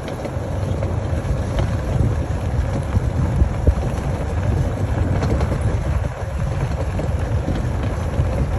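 Steady low rumble of a tractor-towed train of seat-cars rolling on knobbly tyres over a dirt track, with wind buffeting the microphone.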